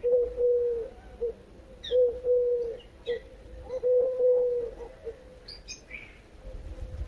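Dove cooing in three phrases of low, steady notes about every two seconds, with a few short higher chirps from small birds in between.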